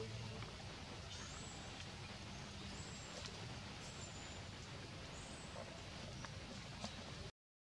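Steady low forest ambience with a few faint, short, high bird chirps spread through it, cutting off abruptly near the end.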